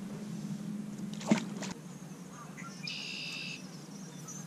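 A short splash about a second in as a largemouth bass is dropped back into the water. Near the middle comes a brief high whir of fishing line paying off the reel during a cast.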